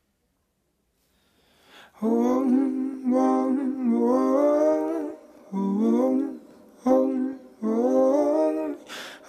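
Silence for about two seconds, then the routine's recorded song begins: a solo voice humming or singing a wordless melody in long held, gliding phrases with short gaps between them. A short hiss comes just before the last phrase.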